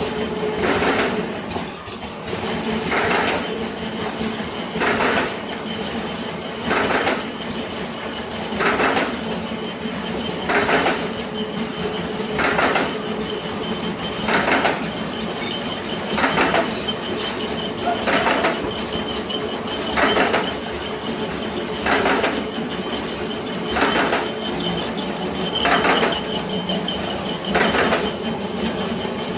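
Pocket wet-wipe making and packaging machine running: a steady mechanical drone with a sharp stroke repeating about every two seconds, once per machine cycle.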